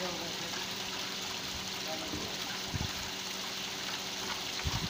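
Bell fountain running: a steady, even rush of falling and splashing water, with a faint low hum underneath.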